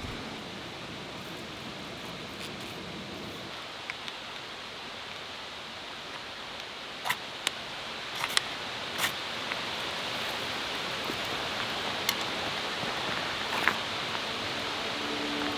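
Twigs and dry kindling catching fire in a folding wood-burning stove. A steady hiss slowly grows louder, and from about seven seconds in, half a dozen sharp crackles and pops break through it.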